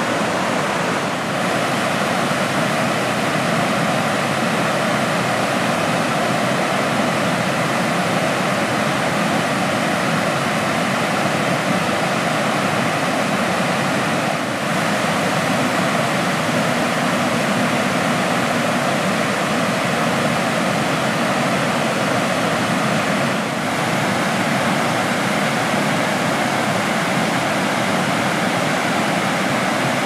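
Water rushing over a low concrete river weir: a loud, continuous, steady pour.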